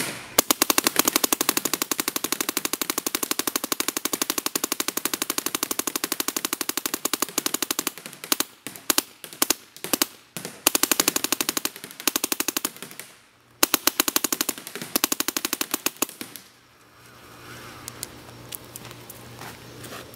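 Dye NT 10 paintball marker firing in PSP 12.5 ramping mode, rapid strings of shots at about twelve a second. A long string of about eight seconds is followed by several short bursts, then another string of a few seconds before it stops.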